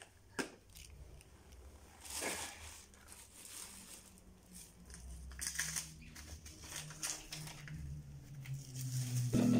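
Quiet handling noises: a couple of sharp clicks at the start, then scattered rustling and light knocks as things are picked up and moved about. Music comes in just at the end.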